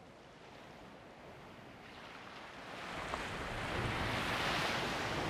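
Sea surf and wind around rocky islets: a faint rushing that swells into a loud wash of noise about three seconds in.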